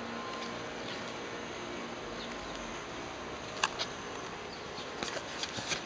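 Keys being handled in the hand: a sharp click a little past halfway, then several lighter clicks and jingles near the end, over a steady background hiss.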